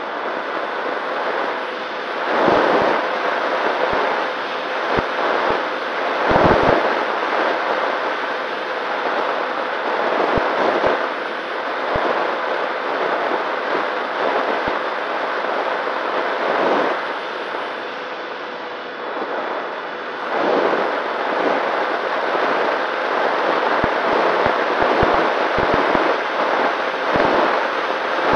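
Wind rushing and buffeting over the microphone of the camera aboard a Nano Talon FPV model plane in flight, surging in gusts every few seconds. Under it runs a faint steady hum from the plane's electric motor and propeller.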